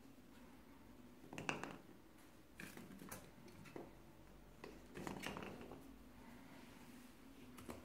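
A cat playing with a wine cork: a few light, irregular taps and scuffs of the cork and paws against a tiled floor and a rush-seated stool, the sharpest about a second and a half in.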